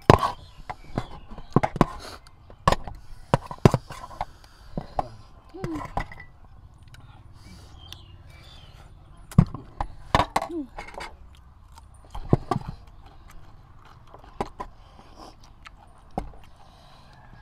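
Metal spoons and forks clinking and scraping against a metal serving tray and a sauce bowl during a meal, with scattered sharp knocks, chewing and slurping of noodles, and a few brief vocal sounds.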